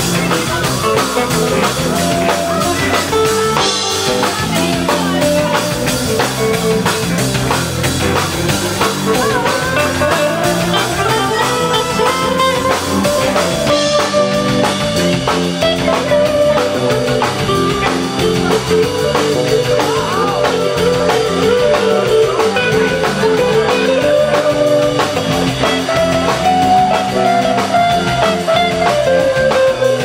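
Live rock band playing at a steady loudness, with a guitar line over a drum kit.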